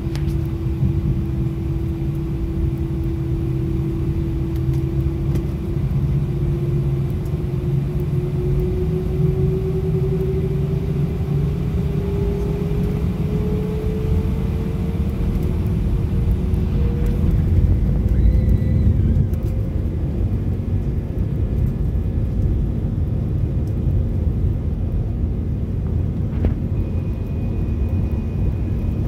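Airbus A319 turbofan engines heard from inside the cabin over the wing: a steady whine that rises in pitch over several seconds as the engines spool up to takeoff thrust, over a low rumble that swells partway through.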